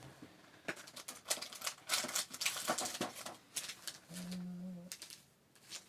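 Sealed foil Pokémon booster packs crinkling and rustling as they are handled and sorted through, with a run of small clicks and crackles. About four seconds in there is a short, steady low hum lasting under a second.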